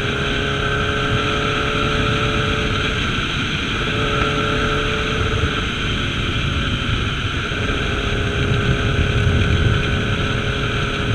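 Yamaha R6's inline-four engine running at a fairly steady pitch under way, with no clear rev changes, getting a little louder about eight to ten seconds in.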